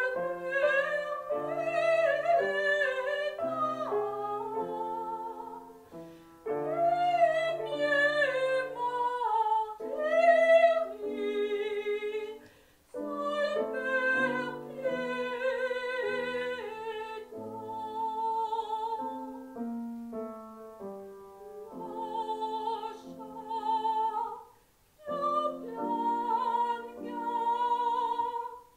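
A woman singing a classical piece in operatic style, with wide vibrato, over a piano accompaniment. She sings in long phrases with brief breaks between them.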